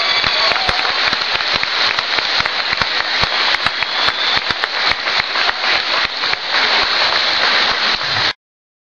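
Audience applauding, a dense steady patter of clapping that cuts off suddenly near the end.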